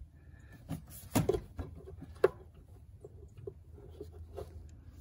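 Scattered light metal clicks and knocks from a 10 mm socket being worked on the heater control valve's fastening, the sharpest a single click about two seconds in.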